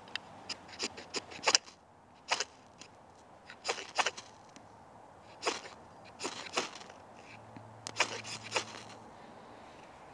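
A knife scraped down a ferrocerium fire steel again and again to throw sparks onto tinder: short, sharp rasping strokes, in small groups of one to three about every second or two.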